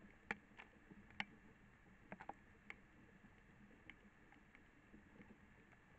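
Near silence: a faint steady hiss with a handful of scattered soft ticks and clicks. The two loudest come about a third of a second and just over a second in, and a quick cluster of three follows at about two seconds.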